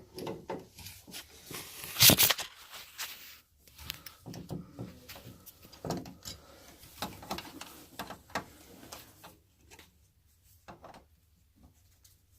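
Irregular clicks, taps and knocks of hand tools and metal parts being handled, with one sharp knock about two seconds in and only faint ticks near the end.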